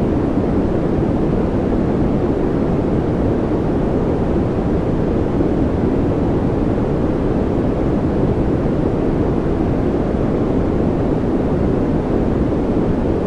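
A continuous white-noise track for relaxation or focus: a steady, deep rushing noise, much fuller in the low range than in the hiss above, with no change or break.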